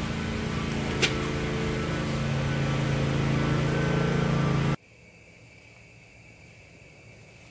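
Steady hum and hiss of a large store's ventilation, with a single sharp click about a second in. About two thirds of the way through it cuts abruptly to much quieter outdoor night air, with night insects trilling steadily.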